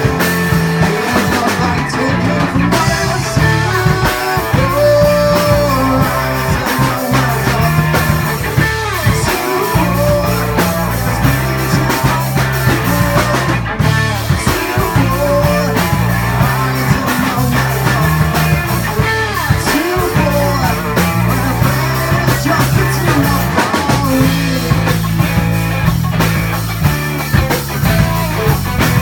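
Live rock band playing loud, with electric guitar, bass guitar and drum kit.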